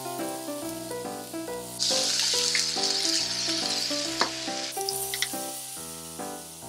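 Chicken, onion, bamboo shoot and tofu sizzling in a hot frying pan, the sizzle surging for about three seconds from about two seconds in as mentsuyu is poured into the pan, with a few light knocks of a wooden spatula. Background music plays throughout.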